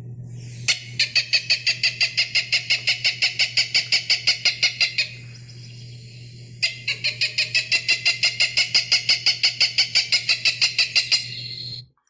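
Cooper's hawk calling kek-kek-kek: a fast run of repeated notes, about eight a second, in two long series of about four seconds each with a short pause between them. A steady low hum runs underneath.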